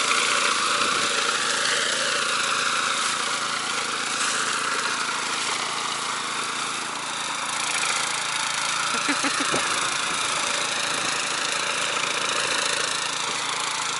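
Petrol walk-behind mower engine running steadily under load as it cuts through grass, pitch wavering slightly. It pulls strongly without bogging down or stalling, its belts and rollers freshly tightened.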